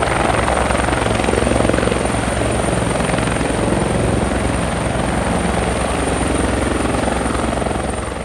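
Helicopter rotor and engine running steadily with a fast, even chop, starting to fade out near the end.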